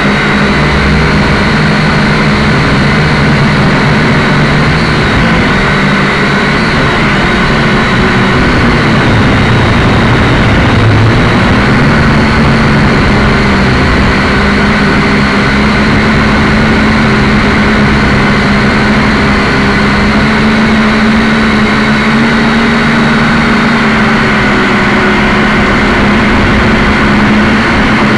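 Quadcopter's electric motors and propellers buzzing steadily, heard up close. The main pitch dips and then rises a little partway through.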